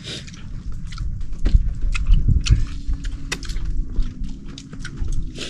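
People eating with their hands, with chewing and lip-smacking and short sharp clicks scattered throughout, over a low steady rumble.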